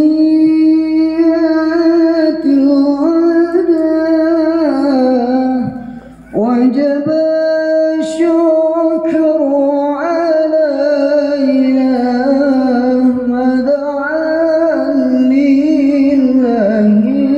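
Music with a single voice singing a slow melody of long, wavering held notes. The sound drops out briefly about six seconds in.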